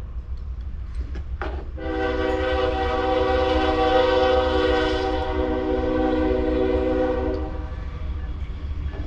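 Train horn sounding one long held chord of several notes for about six seconds, over a steady low rumble.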